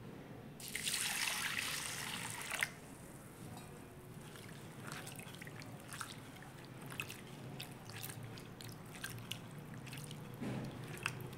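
Water poured into a bowl of thick flattened rice (poha) for about two seconds, then a hand swishing and rubbing the flakes in the water to wash them, with small splashes and drips.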